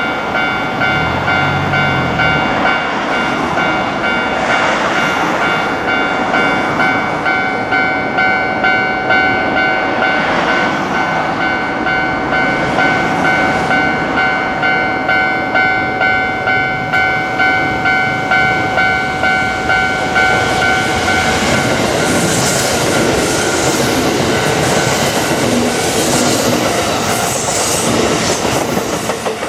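Japanese level-crossing warning bell ringing in a steady, evenly repeating electronic clang. About two-thirds of the way through, a Kintetsu Osaka Line train passes over the crossing, its wheels clattering on the rails and covering the bell.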